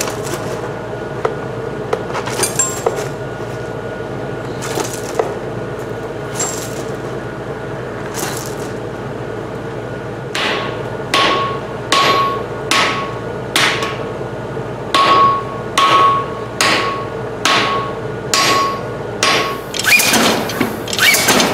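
Hammer blows on a red-hot spring-steel bar, over a steady hum. A few scattered strikes come first. About halfway in, regular ringing blows start at roughly one a second. Near the end the strikes come faster as the bar goes under the power hammer.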